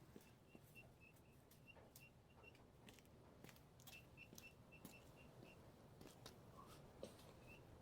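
Faint, short, high peeping chirps from chickens, several a second in runs, with scattered light clicks.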